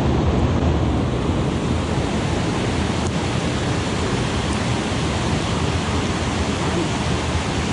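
Mountain stream water rushing steadily over rocks, a loud, even wash of noise close to the microphone.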